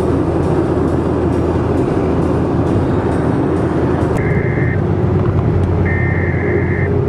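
Steady road and engine noise heard inside a moving car's cabin at highway speed. A short two-note electronic tone sounds twice, about four and six seconds in.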